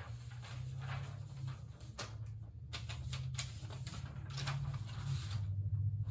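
Sheets of paper rustling and crackling as they are handled and turned over, with several sharper crackles, over a steady low hum.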